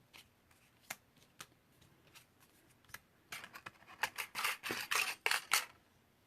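Scattered light clicks and taps, then about three seconds in a quick run of crisp rustling, scraping strokes for a couple of seconds, as small craft supplies are handled on a desk.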